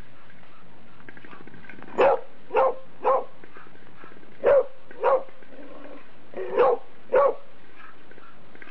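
A dog play-barking: seven short barks in three bursts, three, then two, then two.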